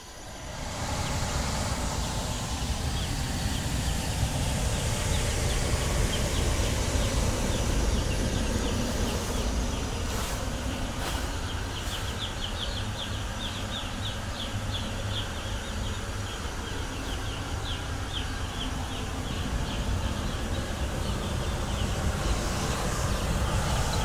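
Hotflow LPG space heater running with a steady low rumble, while many chicks peep continually over it in short, high chirps.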